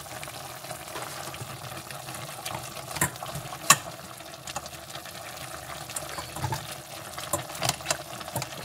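Slotted plastic spoon scraping and knocking against a stainless-steel pot while lifting cooked turkey pieces out of simmering broth, over the steady bubbling of the liquid. Sharp clinks come about three seconds in and again near the end.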